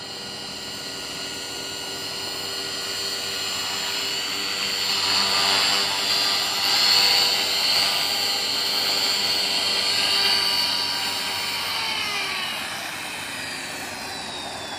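Align T-Rex 450 electric RC helicopter with a high motor and rotor whine that grows louder as it comes in close and sets down. About three-quarters of the way in, the whine starts falling steadily in pitch as the motor and rotor spool down after landing.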